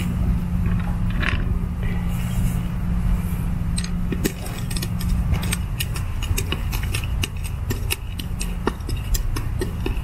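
Small clicks and scrapes of the last bonnet screw being driven into a Hunter PGV plastic sprinkler valve, coming thick and fast from about four seconds in. Under them is a steady low hum that stops about halfway through.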